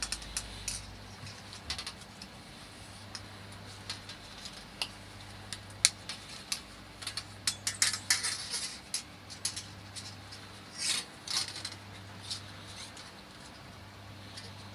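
Recoil-starter coil spring being worked by hand into its housing: scattered light metallic clicks and short scrapes of spring steel against the housing, busiest in the middle stretch.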